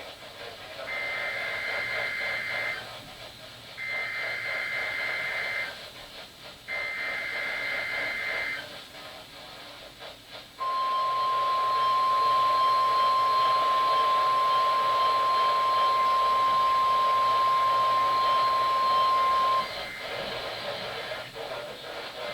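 NOAA Weather Radio alert signalling received over a weather radio with static hiss. First comes the SAME digital header, sent three times as harsh data bursts of about two seconds each. About ten seconds in, the steady 1050 Hz warning alarm tone begins, holds for about nine seconds, then cuts off: this is the weekly test of the alarm.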